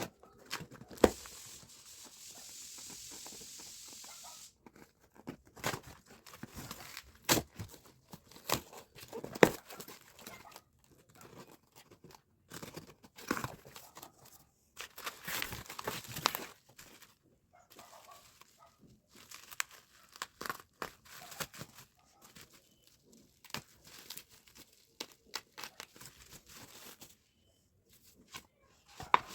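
Close crinkling and tearing of a thin material, with scattered taps and clicks of things being handled, and a steady hiss lasting about three seconds near the start.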